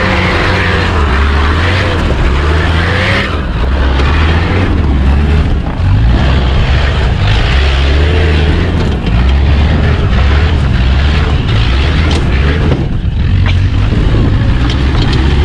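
Off-road 4x4's engine working at low speed over rough ground, its pitch rising and falling with the throttle, with scattered knocks from the terrain.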